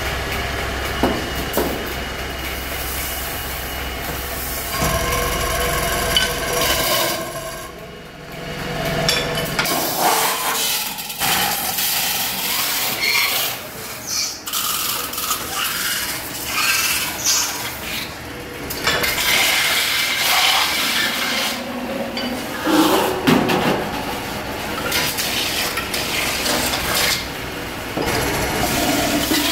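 Metal-spinning lathe running as a hand-held spinning tool is levered against a spinning stainless steel blank, forming it into a bowl. It starts as a steady motor hum, then becomes irregular scraping and squealing of tool on metal, with occasional knocks.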